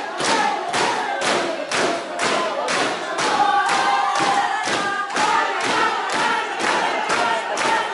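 A crowd of diners singing or chanting together over a steady beat of claps and thumps, about two and a half beats a second.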